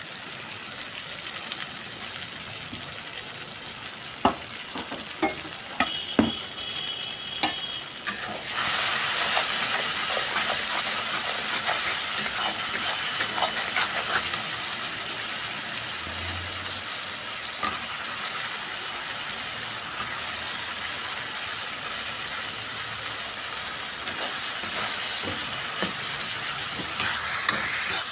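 Ground masala paste frying in oil in a kadai: a steady sizzle, with a spatula stirring and scraping it around the pan. A few clicks of the spatula come in the first seconds, and the sizzle gets louder about eight seconds in.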